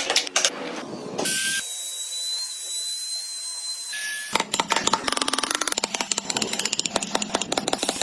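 Tools working wood: scraping and clicks, then a quieter stretch with a steady high whine, then from about four seconds in a fast, dense run of rapid clicks and scraping.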